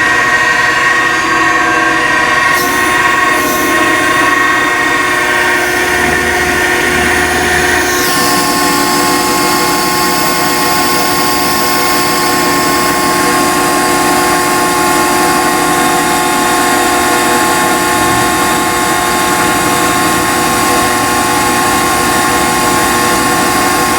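A steady machine drone with several held tones, changing pitch slightly about eight seconds in.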